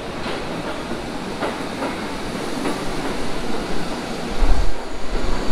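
R62A subway cars running through an underground station: a steady rumble and wheel noise with a few sharp clacks over the rail joints. A deep rumble swells about four and a half seconds in and the sound gets louder.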